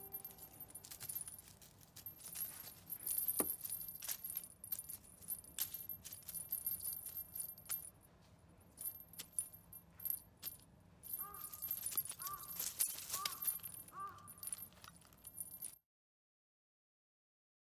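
A cat teaser toy with a small bell jingling and rattling as it is shaken, with many scattered light clicks. A few short high chirps come near the end.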